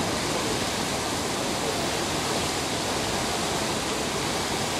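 Steady rushing of canal water around a wading elephant, even in loudness, with no single splash or call standing out.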